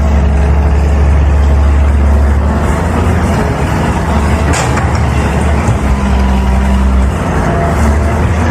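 Heavy diesel engine of earthmoving machinery running steadily under load, with a single short clank about four and a half seconds in.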